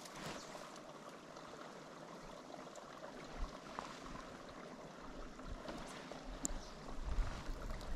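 Small mountain stream trickling faintly and steadily, with a few light ticks. Wind buffets the microphone near the end.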